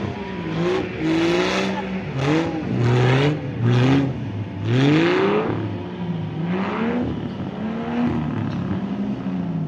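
Off-road buggy engine revving hard over and over, its pitch rising and falling as the throttle is opened and released across the mud mounds, with rough surges of exhaust noise on each rise.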